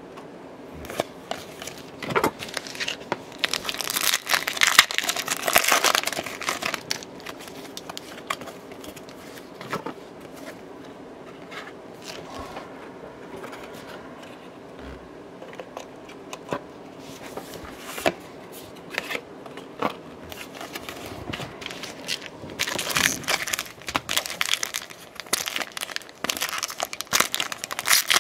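Foil wrapper of a baseball card pack crinkling and tearing as it is opened, with trading cards rustling and being set down between scattered clicks. The crinkling comes in two stretches, a few seconds in and over the last five seconds or so.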